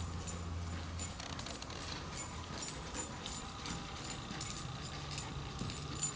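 A dog walking at heel on a leash: light metallic jingling and clicking from its collar and leash hardware, with steps, in a steady run of small ticks.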